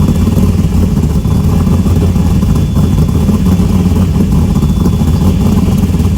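Cammed, carbureted 5.0 V8 idling loudly with a choppy lope. The owner says it needs carb adjusting.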